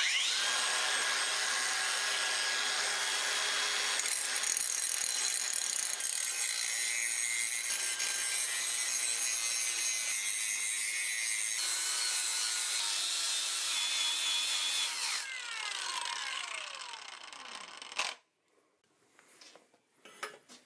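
Angle grinder starting up with a rising whine and grinding metal for about fifteen seconds, then released and spinning down with a falling whine until it stops near the end.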